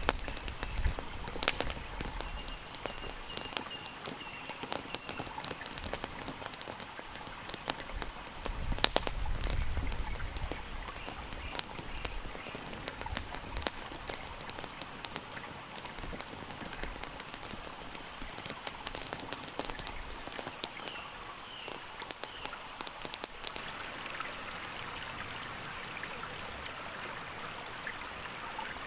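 Wood campfire crackling with irregular sharp pops, over handling sounds of seasoning and pressing raw meat on a wooden board. About 24 seconds in the pops give way to the steady rush of a mountain stream.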